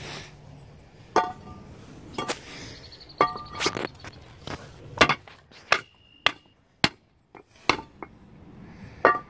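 Masonry stair blocks knocking and clinking against one another and on gravel as they are set in place: about a dozen sharp, irregular knocks, some with a brief ring.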